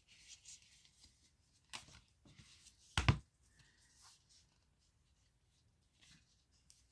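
Tarot cards being handled one after another: faint rustling and sliding of card stock with small clicks, and one short soft knock about three seconds in.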